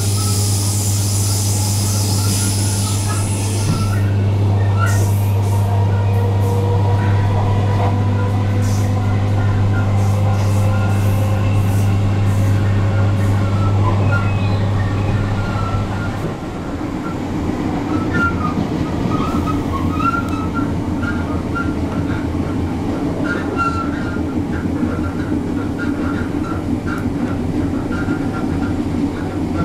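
Interior running noise of a moving British Rail Class 314 electric multiple unit: a steady low electrical hum over wheel-on-rail rumble, with brief squeals from the wheels. A hiss fades out about four seconds in, and about halfway through the hum stops, leaving a coarser rumble.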